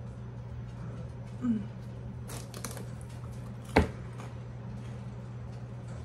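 Kitchen handling sounds: a few light clicks, then one sharp knock just under four seconds in, over a steady low hum.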